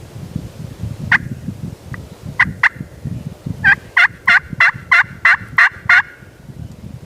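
Turkey yelping: a single yelp, a quick pair, then a run of eight yelps at about three a second, each note breaking between a lower and a higher pitch. A low rumble runs underneath.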